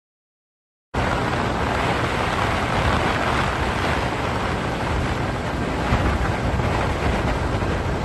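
Wind rushing over the microphone with road noise while filming from a moving vehicle: a steady, loud rumbling hiss that starts suddenly about a second in.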